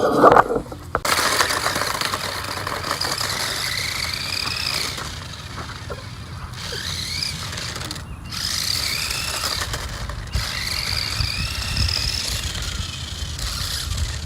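Small electric motor of a 1:16 scale 4WD RC drift car whining at high pitch, rising and falling as it speeds up and slows, with a few short pauses.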